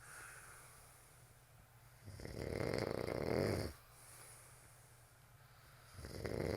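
Snoring: one snore lasting about a second and a half about two seconds in, and the next starting near the end.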